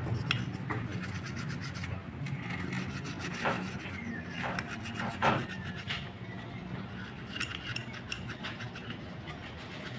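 A paintbrush dipped in petrol scrubbing a grimy carburetor part, a fast run of short back-and-forth brushing strokes working off caked dirt, with a few sharper clicks of the metal part near the middle.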